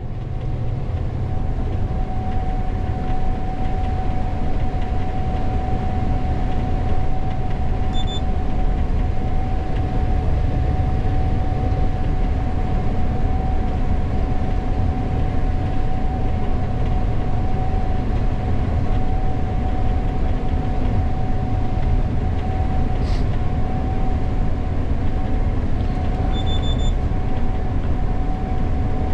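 Gleaner S98 combine running steadily while harvesting corn, heard from inside the cab: a loud, even drone with a constant whine. Two short high electronic beeps sound, one about a third of the way in and a slightly longer one near the end.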